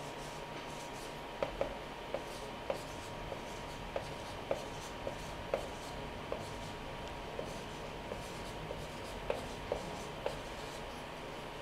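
Scattered soft clicks and small taps at irregular times, over a steady hiss and a faint steady tone just under 1 kHz.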